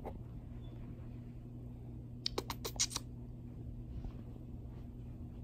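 Kittens scampering and pouncing on carpet: a quick run of about five light taps and scratches a little past the middle, with softer scuffs later, over a steady low hum.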